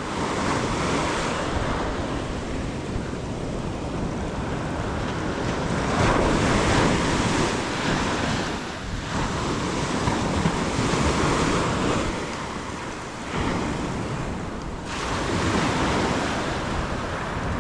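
Ocean surf breaking and washing up a sandy beach, a steady rushing noise that swells and falls several times as waves come in, with wind buffeting the microphone.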